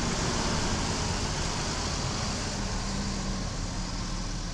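Large bus engine running steadily, a low hum under a steady wash of engine and road noise.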